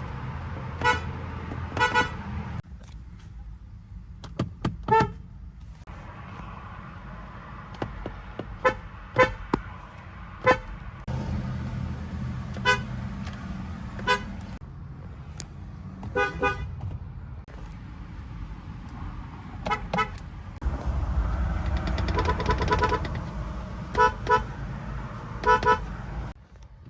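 Car horns giving many short toots, several in quick pairs, with one honk held for over a second about three-quarters of the way through. A low engine and traffic rumble runs underneath.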